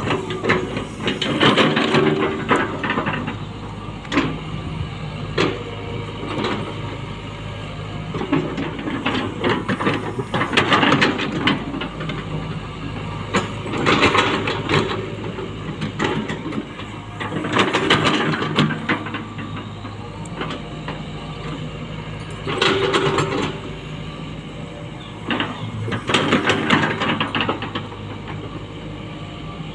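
Tata Hitachi Zaxis 120H excavator running at a steady drone, its engine note swelling every four seconds or so as the hydraulics work the boom and bucket. With each swell comes a noisy scrape of the bucket dragging through loose soil.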